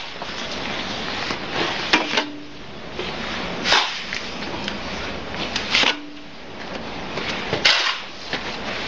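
A shovel scraping wet mortar across a concrete floor, in repeated strokes about every two seconds, as the mixed mortar is gathered up for the spraying machine's hopper.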